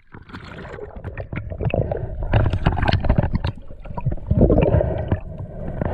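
Water splashing and gurgling around a freediver breaking the surface, with the camera dipping in and out of the water: irregular sloshes and bubbling, louder about two seconds in and again near the end.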